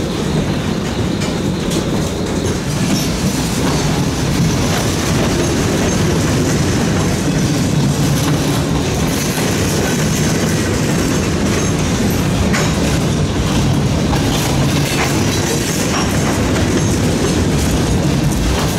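Freight cars rolling past close by, a tank car, covered hoppers and open gondolas: a steady rumble of steel wheels on rail with scattered clacks as the wheels cross the track.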